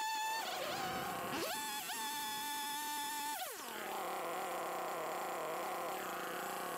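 Chainsaw cutting the corners off a thick wooden blank. The motor gives a high steady whine that dips briefly about half a second in, then drops to a much lower pitch at about three and a half seconds as it bogs in the cut, and climbs back up near the end.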